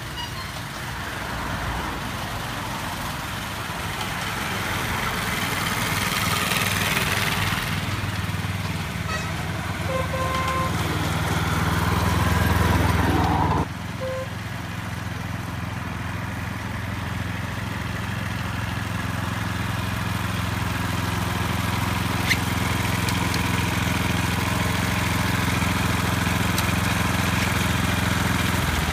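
Small internal-combustion engine of a miniature diesel-outline locomotive running steadily and growing louder as it draws near. The sound drops suddenly about halfway through, then the engine is heard running again and builds up toward the end.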